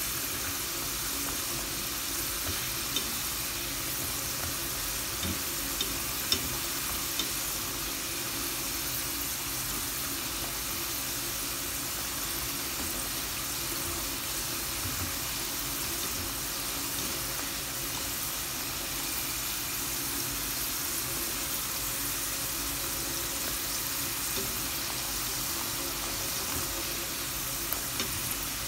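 Pieces of dough deep-frying in hot oil in a stainless steel pot, a steady sizzle, with a few sharp clicks near the start and again near the end.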